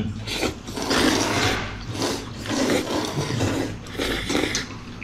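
Jjajangmyeon noodles being slurped up close, a run of short, noisy slurps.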